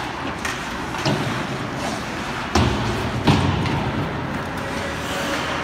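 Ice hockey play heard in a rink: a run of sharp knocks from sticks, puck and boards over the hall's steady noise, the two heaviest a little past the middle.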